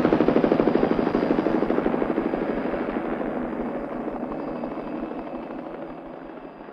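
Helicopter rotor, probably a Robinson R44's, chopping rapidly and steadily, fading away evenly throughout.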